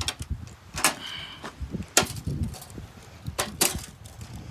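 Plastic parts of a TV being pried and popped off by hand: a series of sharp snaps and clicks, the loudest about two seconds in and a quick pair near the end, with a brief high squeak about a second in.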